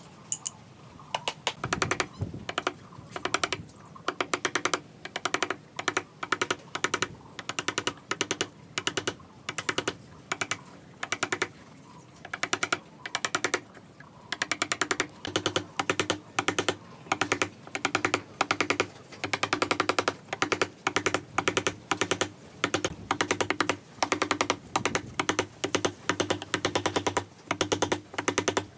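Steel woodworking chisel driven into hardwood with quick, light blows, the strikes coming in rapid runs of several taps about once a second as waste is chopped out of a joint.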